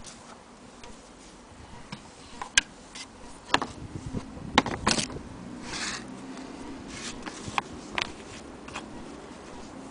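Irregular clicks, taps and rubbing as an antique Willcox & Gibbs sewing machine, its thread spool and a piece of denim are handled, with the sharpest knocks near the middle.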